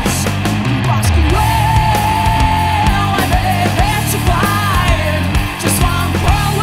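Heavy metal song playing: a full band with distorted guitars, bass and drums. About a second in, a long, slightly wavering high note is held for about two seconds, with short bent notes a little later.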